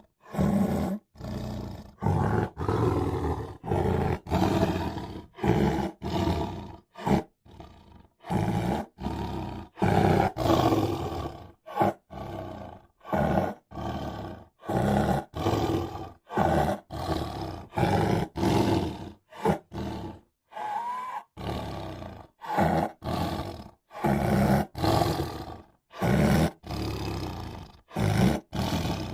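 Tiger roaring in a rapid string of short, abruptly cut snippets, about one a second, each separated by a brief silence.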